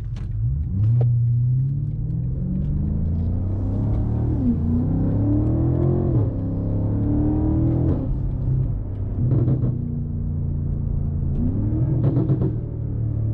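BMW M5 Competition's twin-turbo V8 running as the car drives, rising in pitch under acceleration several times and dropping back at each gear change, with a steady stretch of cruising in between.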